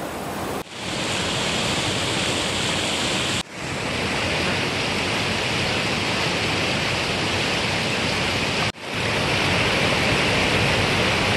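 Steady rushing of a fast, shallow river pouring over rock cascades, dropping out for a moment three times.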